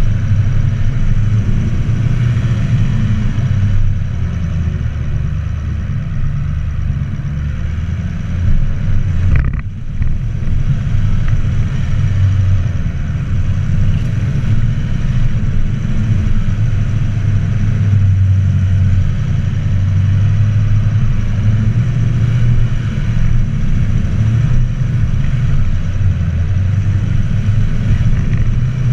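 Vehicle engine running under steady load while climbing a hill, with a low drone and one brief drop about ten seconds in.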